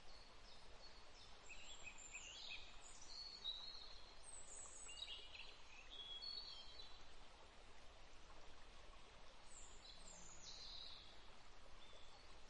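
Faint bird chirps, short high calls in small clusters every second or two, over a low steady hiss.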